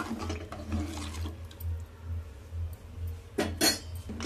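Steel spoon stirring watery rice and moong dal in an aluminium pressure cooker, with sloshing and light clinks against the pot, then a couple of sharp metal knocks near the end. A low steady hum underneath.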